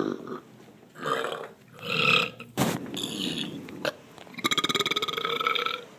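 A person belching several times in a row: a few short burps in the first three seconds, then one long burp of about a second and a half near the end.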